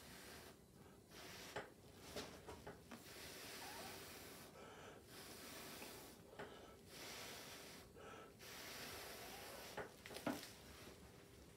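Breath blown hard through a drinking straw onto wet acrylic paint, pushing it across the canvas. It comes as a series of hissing puffs of about a second each, with short pauses for breath between them.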